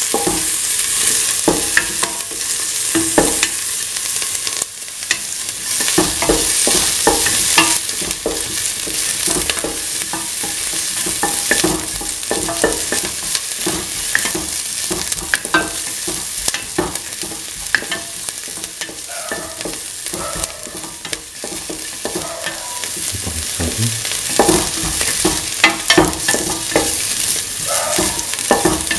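Chopped onions sizzling in oil in a stainless steel pan, with a spatula stirring them and scraping and tapping against the metal again and again.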